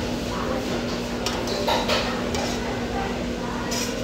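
Utensils clinking against a dish a few times while eating, the loudest clink about two seconds in, over a steady low hum.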